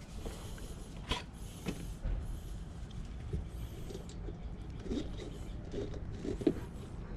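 A mountain bike tubeless tyre is being handled and worked onto its rim by hand, making scattered light knocks against a low steady background.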